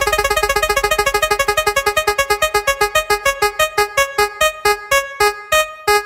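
Electronic spinning-wheel sound effect: short synthesized keyboard-like notes repeating in a fast rattle that slows steadily to about three notes a second, as the wheel winds down.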